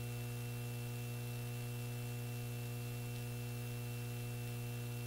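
Steady electrical mains hum with a faint hiss, unchanging throughout: dead air on the broadcast feed with no programme audio.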